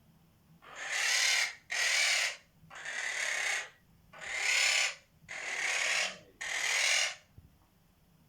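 Quaker parrot (monk parakeet) making six harsh, hissing screeches in a row, each just under a second long with short gaps between them.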